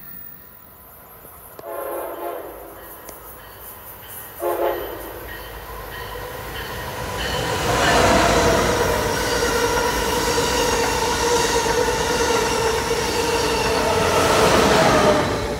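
Amtrak Acela Express sounding two short horn toots on approach, then passing close by, loud for about seven seconds with a steady tone under the rushing noise. The sound drops off quickly as the rear power car goes by near the end.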